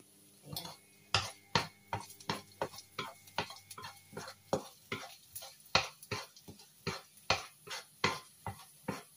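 Wooden spatula knocking and scraping on a white nonstick frying pan as minced garlic is stirred in a little oil, about three strokes a second.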